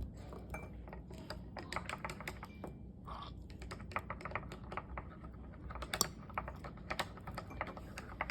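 Faint, rapid, irregular clicking and tapping of a stirring rod against a cup as glue-and-borax slime is stirred.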